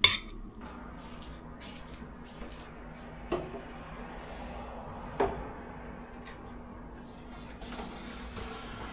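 Dishes clinking and being set down. A sharp clink at the very start, then two knocks with a short ring about two seconds apart, and a few faint taps.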